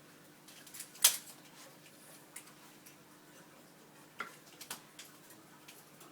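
A few scattered light clicks and taps, the loudest about a second in and a small cluster about four to five seconds in.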